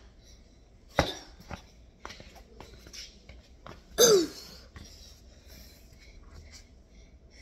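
Movement sounds of a boy on a tile floor: a sharp knock about a second in, a few light clicks and scuffs, and one short loud squeak falling in pitch about four seconds in as a sneaker steps close by.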